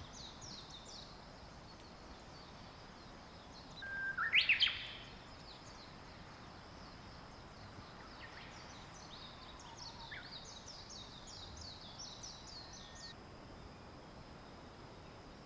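Wild birds singing: rapid runs of short, high, falling notes repeated over and over, with one louder rising call about four seconds in, over faint outdoor hiss.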